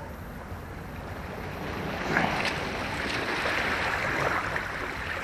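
Sea waves washing against the rocks of a breakwater, a steady rushing wash that swells about two seconds in.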